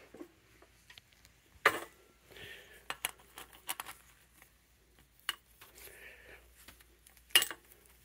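Scattered clicks, knocks and light clinks as the power cord is pulled off the cord hooks on a 1930s Hoover 900 upright's handle. Two sharp clacks, about 2 seconds in and near the end, are the loudest, with soft rustles of the cord in between.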